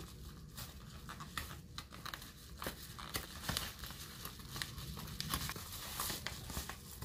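Package wrapping being torn open and crinkled by hand: irregular short rustles and rips.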